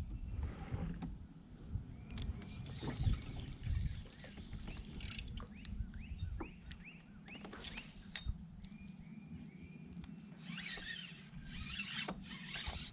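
A small bird chirping in short runs of three or four quick notes, over a low rumble of wind and water, with scattered light clicks from handling gear in a kayak.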